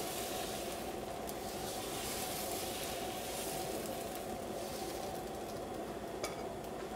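Freshly spread dosa batter sizzling steadily on a hot dosa pan, with one small click about six seconds in.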